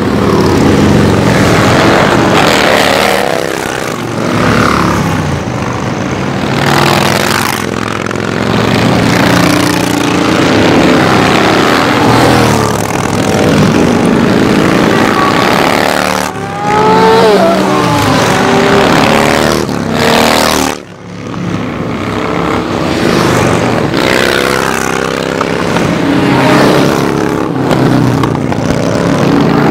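A parade of motorcycles riding past one after another, mostly cruisers and baggers with a few sport bikes, engines rumbling and revving as each passes. The sound is loud and unbroken, with pitches rising and falling as bikes go by, and a brief sudden lull about two-thirds of the way through.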